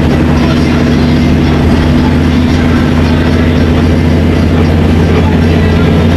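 Intercity coach's engine droning steadily at cruising speed, mixed with tyre and road noise, heard inside the cab.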